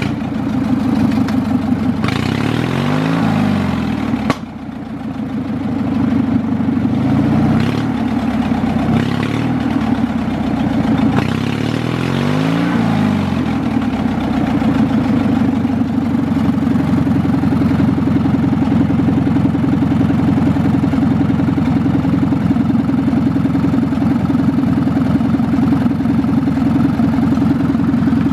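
Craftsman riding mower engine revved up and back down three times, then running steadily at a constant speed.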